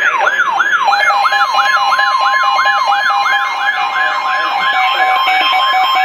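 Several weather alert radios sounding their alarms at once: a fast, siren-like rising and falling sweep repeating about four times a second, layered with a steady tone and a beeping tone from the other receivers. The alarms signal a severe thunderstorm warning.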